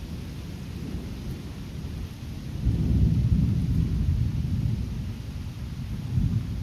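Rolling thunder that builds about two and a half seconds in and rumbles on, fading slowly, with a second brief swell near the end, over steady rain.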